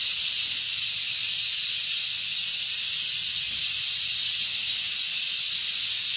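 A steady, even, high hiss of air or spray that does not change in strength.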